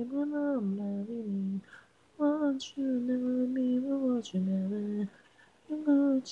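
Isolated a cappella vocal track: a voice singing long held, gently bending notes in three phrases with short pauses between, and no instruments. Brief breaths or sibilants come between the phrases.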